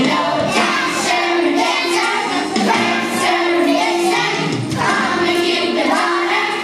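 A group of young children singing a Christmas-program song together over backing music.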